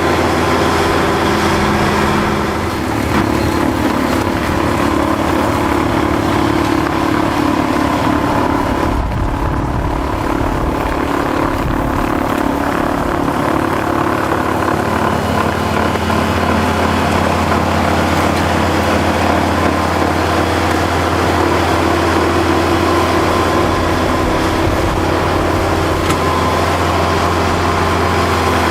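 Kubota L5740 tractor's diesel engine running steadily, with a brief change in its sound about nine seconds in.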